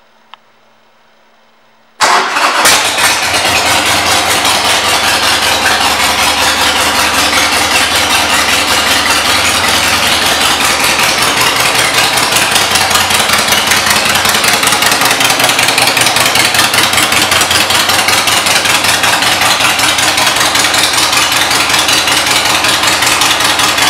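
Harley-Davidson Sportster 1200's air-cooled Evolution V-twin starting up about two seconds in, then idling loudly and steadily through aftermarket exhaust pipes.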